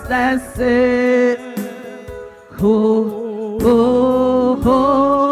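Slow gospel worship song: a singer draws out the word "circumstances," then holds long notes with a wavering pitch over a soft instrumental accompaniment.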